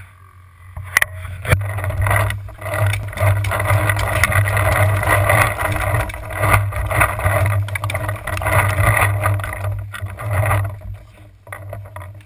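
Rough, loud rustling and jostling noise from a camera mounted on a paintball marker while the player runs to cover, with a few sharp knocks near the start; it dies down near the end.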